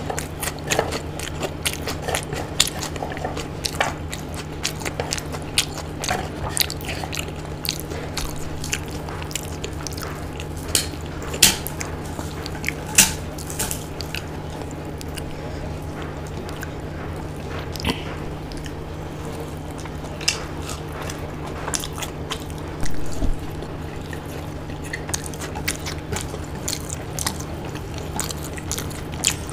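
Close-up eating sounds: chewing and biting with many sharp, irregular mouth clicks and short crackles, and fingers mixing soft khichdi on a plate, over a steady low hum.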